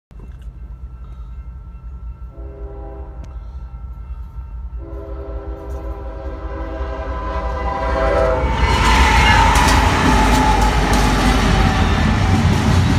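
Union Pacific freight train's diesel locomotive horn sounding two long blasts for a grade crossing, the second starting about five seconds in, over a crossing bell ringing steadily and a low diesel rumble that grows louder. From about eight seconds in the lead locomotives reach the crossing and pass close by, and the engines and wheels on the rails turn loud.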